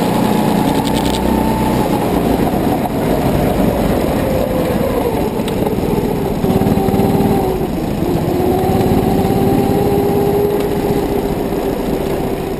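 Go-kart's small engine heard from on board, running under way: its pitch falls steadily from about two seconds in to about six seconds in as the kart eases off, then holds lower and fairly even.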